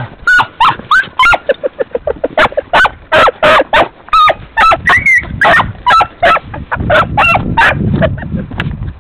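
A pack of beagles baying in quick, high yelps, about three a second and overlapping, as the hounds give tongue while hunting to flush game.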